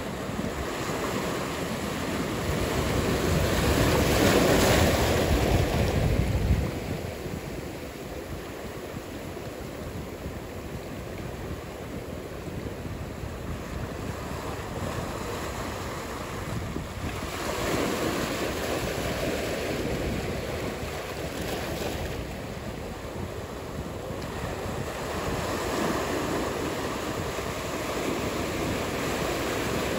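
Ocean surf: a steady rush of breaking waves that swells and fades. The loudest swell comes a few seconds in and drops off abruptly, with smaller swells later.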